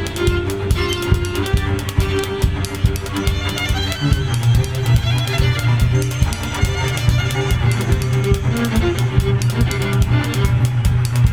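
Live new-music ensemble playing, led by a bowed violin over a dense patter of rapid clicks and taps. A strong low held note comes in about four seconds in.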